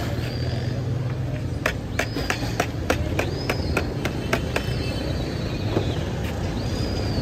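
Street background with a steady low traffic rumble. A quick run of sharp clicks comes in the first half, and several short high squeaky tones that rise, hold and fall.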